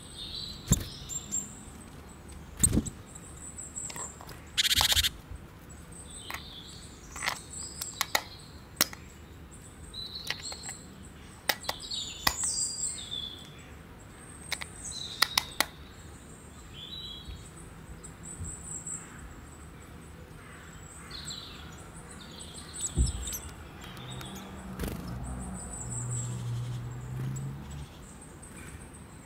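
AA batteries being pressed into a plastic four-cell battery holder: a series of sharp clicks and snaps as the cells go in against the metal spring contacts. Small birds chirp throughout.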